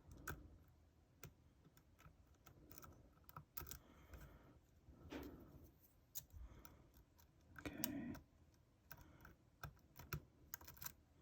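Faint, irregular small metallic clicks and taps of a lock pick and tension wrench working the pins of a Yale euro cylinder lock, under heavy tension as pins are let drop.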